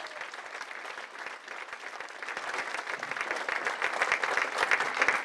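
An audience applauding, the clapping growing louder from about two seconds in.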